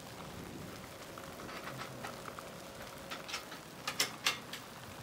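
Rain falling steadily, with a few sharp taps in quick succession a little past the middle, which are the loudest sounds.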